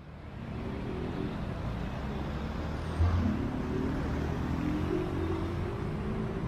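Street traffic with car and bus engines running by, fading in over the first half second, with a short low thump about three seconds in.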